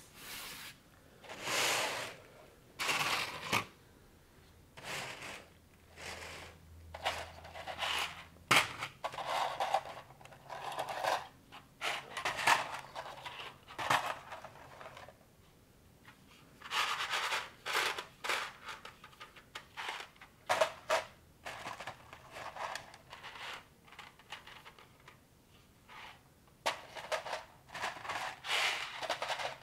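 Plastic construction-set pieces of a Technic-style build being handled and fitted together: rustling and rummaging through loose parts with irregular clicks and snaps in bursts, the sharpest snap about eight and a half seconds in.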